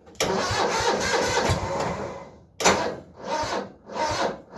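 Cub Cadet 782 garden tractor's engine being cranked by its electric starter on a weak battery in the cold: a steady grinding whir for about two seconds, then slow, labouring turns about one and a half a second, without catching. The battery is nearly dead.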